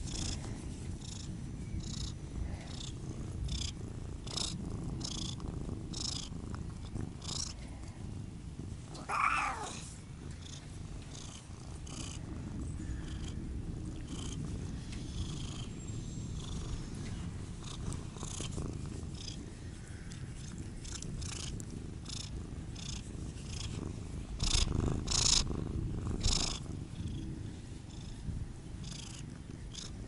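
Siamese cat purring steadily close up while being scratched under the chin, with many short rustling ticks from fingers moving through its fur. About nine seconds in there is a brief louder sliding sound, and it grows louder again for a couple of seconds near the end.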